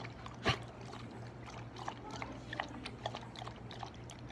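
Husky lapping water from a collapsible silicone bowl: a run of soft, uneven wet laps, with one louder lap about half a second in.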